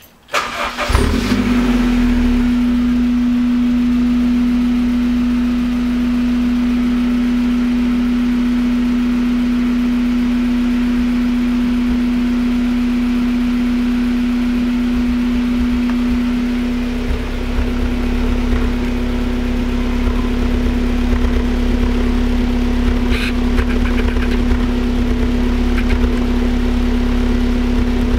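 A Honda F20B 2.0-litre four-cylinder, fitted with an aftermarket header and cat-back exhaust, starting about a second in and then idling with a steady drone. From about two-thirds of the way through, the low exhaust pulse becomes more uneven. The owner wonders whether this unevenness is a misfire or only the exhaust tone.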